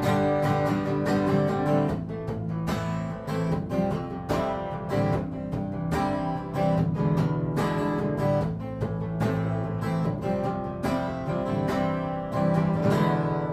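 Acoustic guitar strummed in a steady rhythm, an instrumental passage of a song with no singing.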